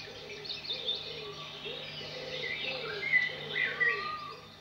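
Woodland birdsong: several birds chirping and whistling, with a couple of louder whistles in the second half and a lower call repeating about twice a second. A low steady hum lies underneath.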